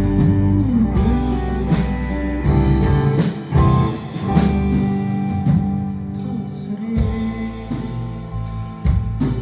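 Live indie rock band playing, with guitar to the fore over bass and a steady beat.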